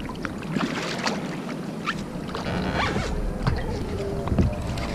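Water slapping against a plastic fishing kayak and its paddle, with many small clicks and knocks of handled gear. About halfway through, a low rumble joins as the rod is lifted and the baitcasting reel is worked against a hooked fish.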